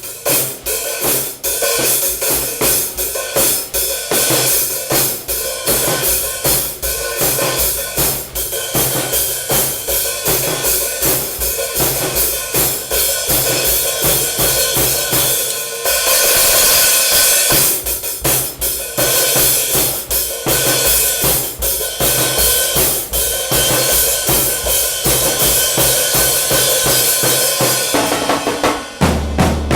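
Drum kit played at a steady rhythm: snare, bass drum and hi-hat, with cymbals washing louder from about halfway through. The playing ends near the end on a final low hit that rings out.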